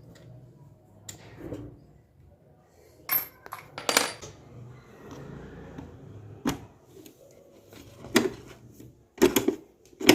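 Hand tools and metal engine parts clinking and knocking as they are handled. The sharp metallic clinks come at irregular intervals, with a quick cluster of them near the end.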